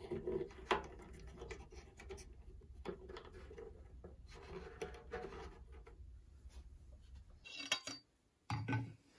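Close handling sounds of a wooden tailpiece against a gourd banjo's rim: scratching, rubbing and small clicks as it is fitted. Near the end there are a few sharp clicks, then a single heavier knock on a wooden workbench.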